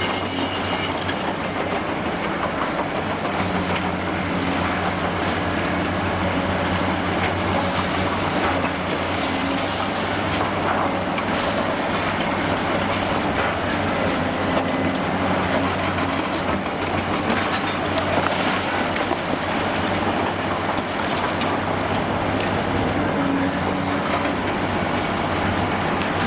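Heavy demolition excavator's diesel engine running under load, its pitch shifting a little, with repeated cracks and clatter of concrete being broken and debris falling throughout.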